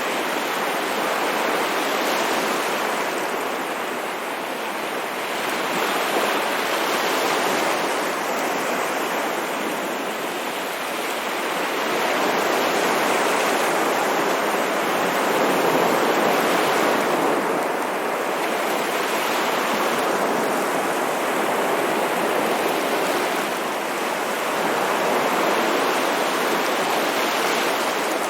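Ocean waves washing in as continuous surf, swelling and easing every few seconds.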